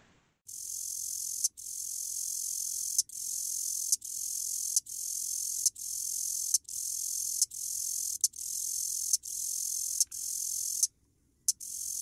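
Recorded cicadas buzzing in a high, shrill drone that comes in even pulses of just under a second, each starting with a sharp edge, with one short break near the end; insect sound from a cicada-inspired music album.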